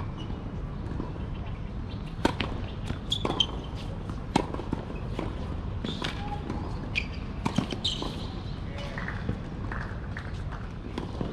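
Tennis rally on an outdoor hard court: the ball is struck by rackets and bounces, a run of sharp, irregular pops starting about two seconds in and dying away near the end.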